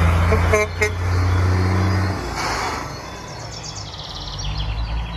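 Diesel semi truck with a tanker trailer running as it drives past, with a short horn toot about half a second in. The low engine sound drops away about two seconds in, leaving fainter traffic noise.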